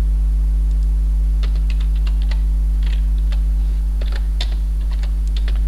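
Computer keyboard typing: a scatter of keystrokes starting about a second and a half in and running on nearly to the end. Under it is a steady low electrical hum, the loudest part of the sound.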